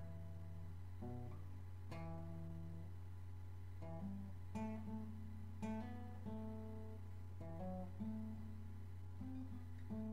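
Background music: acoustic guitar playing plucked notes and strummed chords at an unhurried pace, over a steady low drone.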